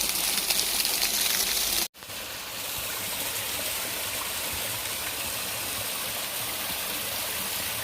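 Steady rush of water at a waterfall and river pool, broken by a sudden drop-out about two seconds in, after which the rush carries on slightly quieter.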